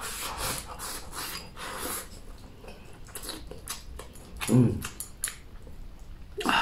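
Close-up eating sounds: chopsticks scraping rice and chopped green chili from a bowl into the mouth, then chewing and mouth smacks. A short low hum from the eater about four and a half seconds in is the loudest sound.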